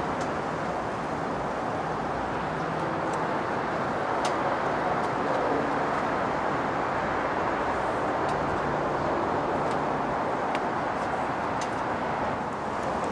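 Steady outdoor background of traffic and parked-lot noise, an even hum with a few faint ticks.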